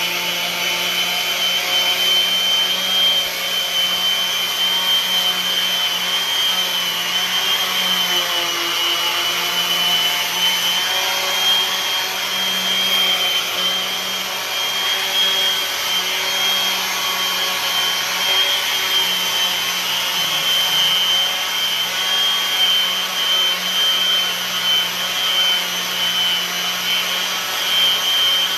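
Electric random orbital sander running steadily with a high whine, sanding the rasp-carved wooden neck of a neck-through bass to define its profile.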